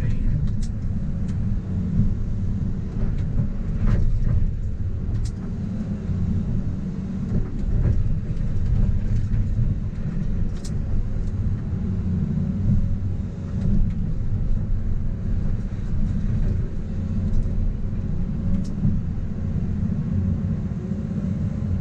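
Heavy earthmoving machine's diesel engine running steadily under load, a deep rumble, with a few faint knocks of the machine working rock.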